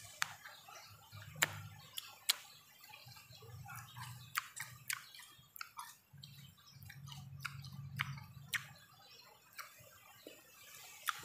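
A person eating bilimbi fruit (belimbing wuluh), with sharp, irregular mouth clicks and smacks roughly once a second over a faint low hum.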